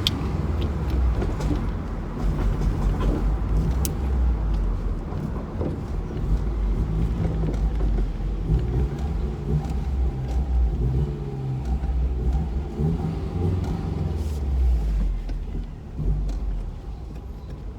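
2002 Subaru WRX's turbocharged flat-four engine running while the car is driven, its note rising and falling with throttle, along with road noise; it grows quieter near the end.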